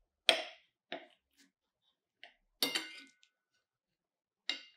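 Metal fork and knife clinking against a ceramic plate while cutting a slice of French toast: a handful of sharp clinks, the loudest about a third of a second in, another ringing one near the middle and two more near the end.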